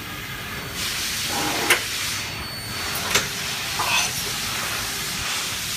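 Stama MC 331 twin-spindle CNC machining center switched on from its control panel, giving a steady hiss that starts about a second in. Sharp clicks come three times over it.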